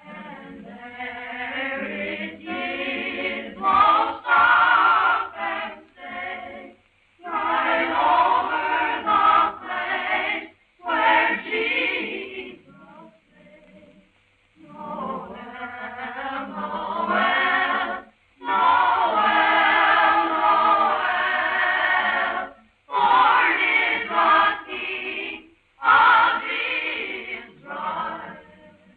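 A choir singing a Christmas carol without words being spoken, in phrases of a few seconds with brief breaths between them, on a thin, narrow-band 1949 kinescope soundtrack.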